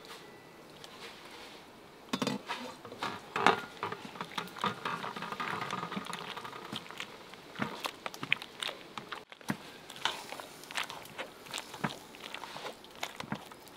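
A metal pot lid is lifted off and set down, then a hand potato masher squashes boiled potatoes in a metal pot: soft scrunching with irregular clicks and knocks of the masher against the pot.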